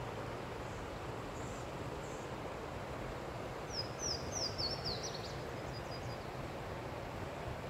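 A songbird sings one short, quick phrase of about six high, down-slurred notes about four seconds in, ending in a brief trill. Behind it is a steady outdoor hiss.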